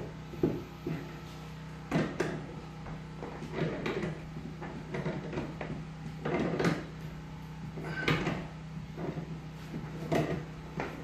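Pliers clinking and knocking against a nut and the metal brace bar while the nut is worked tight on a long lag bolt. Irregular sharp knocks come every second or two over a steady low hum.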